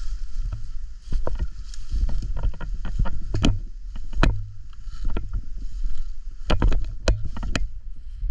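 Footsteps moving through dry leaves and woodland undergrowth, with irregular sharp snaps and knocks over a low rumble of gear and helmet-camera movement.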